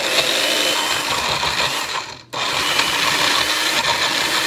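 Magic Bullet Mini blender running on whole frozen strawberries without liquid, the blade clattering and grinding against the frozen chunks. The frozen fruit catches on the blade rather than blending smoothly. It cuts out briefly about two seconds in and starts again as the cup is pressed down once more.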